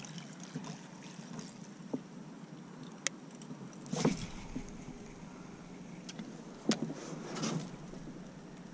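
Scattered clicks and knocks of fishing gear handled on a kayak as the rod is picked up, with two louder bumps about four and seven seconds in.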